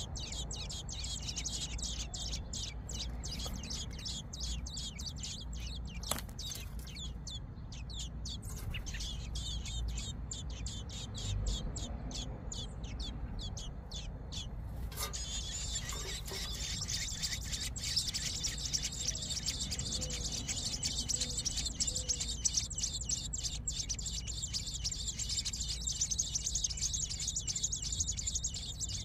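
American robin nestlings begging: rapid, high-pitched cheeping, many calls a second, growing denser and louder about halfway through. A low steady rumble runs underneath.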